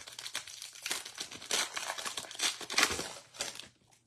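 Foil wrapper of a trading-card pack torn open and crinkled in the hands: a dense run of crackles that dies away shortly before the end.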